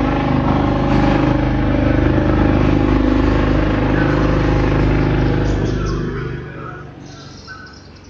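Several motorcycles' engines, very loud and steady, dying away about six seconds in.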